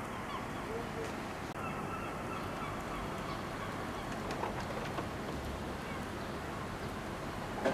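Gulls giving short, scattered cries over a steady background hiss, with one sharper cry at the very end.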